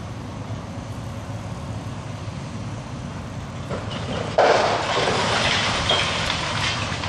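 Demolition crane's engine running with a steady low rumble, then about four seconds in a sudden crash as the wrecking ball strikes the brick power-plant wall, followed by a couple of seconds of masonry and rubble crumbling down.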